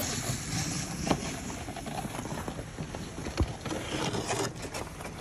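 Footsteps of snowboard boots crunching over packed snow, irregular steps with a heavier thump about three and a half seconds in.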